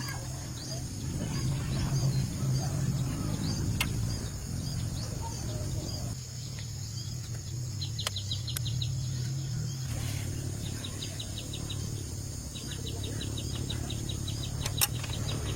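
Outdoor ambience of birds chirping, with several quick trills of rapid ticks, over a steady low hum.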